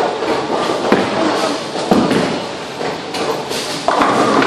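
Bowling ball rolling down the lane after release, with a heavy crash of pins about two seconds in, amid the general knocking and clatter of a busy bowling alley.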